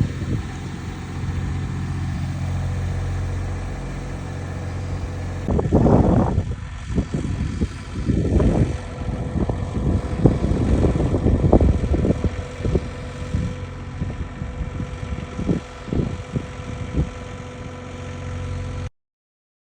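An engine idling steadily. From about five and a half seconds in, irregular knocks and rumbles sound over it, and everything cuts off abruptly just before the end.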